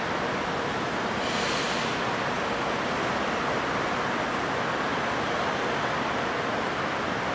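Steady road-traffic noise from a city bus and lines of cars moving slowly on a busy multi-lane road. A brief hiss about a second and a half in.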